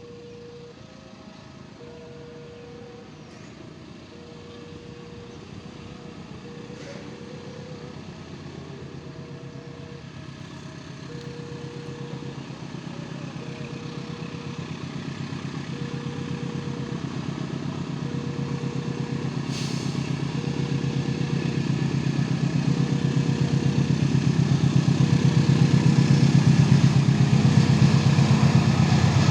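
Railway level-crossing warning signal repeating a short electronic tone about once a second, while a train approaches and its engine noise grows steadily louder, loudest near the end.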